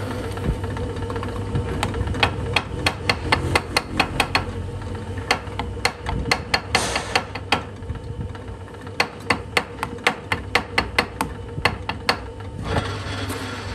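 Hand hammer striking a steel workpiece held in a lathe's chuck: runs of sharp knocks, about two to three a second, with short pauses between the runs.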